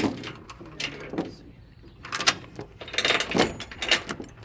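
Heavy steel tie-down chains and binders clanking and rattling as they are handled. There are several separate metal knocks, with a denser cluster about three seconds in.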